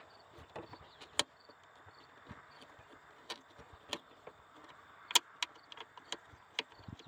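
Scattered sharp clicks and light knocks of hand work in a car's engine bay, about half a dozen spread irregularly, the loudest about five seconds in.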